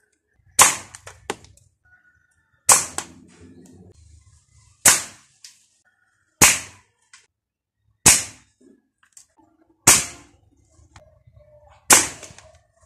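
Seven sharp cracks of a 5.5 mm (.22) spring-powered air rifle firing, about two seconds apart, each followed by a few quick smaller clicks.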